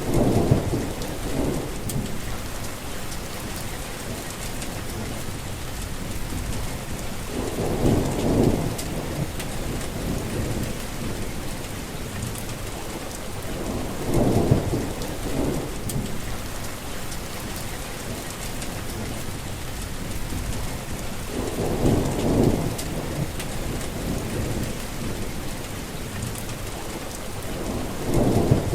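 Heavy rain falling steadily, with low rolls of thunder swelling up about every seven seconds, five times in all.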